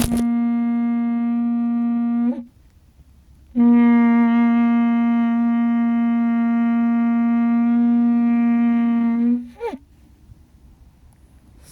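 Shofar blown in two long, steady blasts on one held note. The first cuts off about two seconds in, and after a short pause the second holds for about six seconds. Each blast ends with a brief upward break in pitch.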